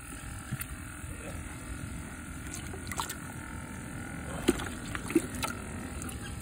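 A flounder being handled in a plastic bucket of water: a few short knocks and light splashes, two louder ones about four and a half and five seconds in, over a steady low rumble.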